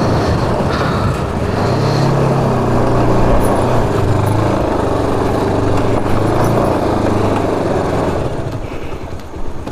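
Motorcycle engine running at low speed as the bike rides along, over a steady rumble of rolling and wind noise on the bike-mounted microphone; the engine note eases off about eight seconds in.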